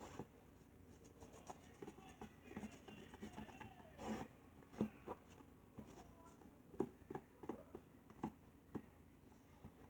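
Glue being poured from a squeeze bottle into a bowl: quiet handling with scattered soft taps and clicks of bottle and bowl. There is one brief soft rush about four seconds in, and a few sharper ticks in the second half.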